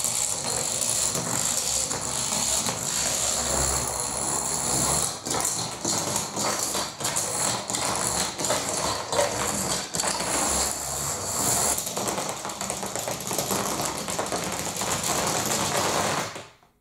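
Long runs of plastic toy dominoes toppling in chains across a wooden floor: a dense, continuous clatter of many small clicks. It fades out just before the end.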